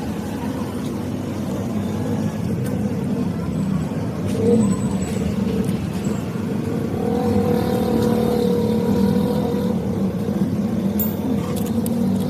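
A motorcycle engine running steadily, growing a little louder about halfway through, with some light clicks.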